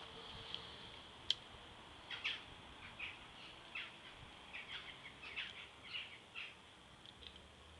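Small birds chirping in short, irregular calls, with a single sharp click about a second in.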